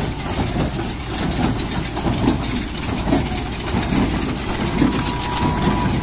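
Tractor-drawn straw baler at work in wheat stubble: the tractor's diesel engine runs steadily under the baler's mechanical clatter as it packs straw into bales. A faint thin whine sounds briefly near the end.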